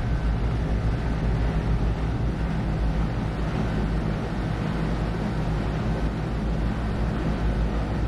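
Carrier rooftop air-conditioning unit running steadily: an even low hum and whoosh from the condenser fan and compressor, with a faint steady high tone above it.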